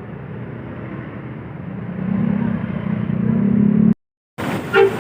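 Bus engine running, with a steady low hum that grows louder from about two seconds in. It cuts off suddenly about four seconds in.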